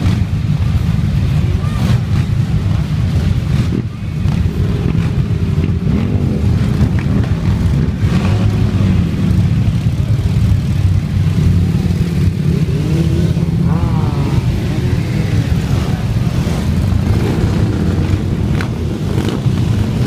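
A long column of motorcycles, many of them cruisers, riding past at low speed with their engines running steadily and loudly.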